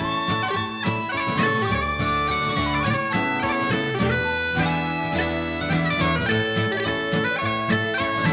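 Instrumental music led by bagpipes: a melody of quick-changing notes over steady held drones.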